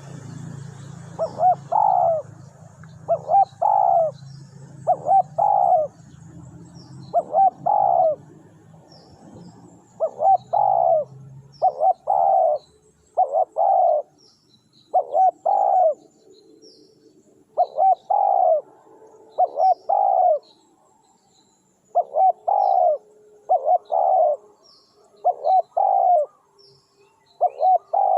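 Spotted doves cooing over and over, in phrases of two or three low coos repeated every second or two. Thin, faint chirps of small birds sound high above them.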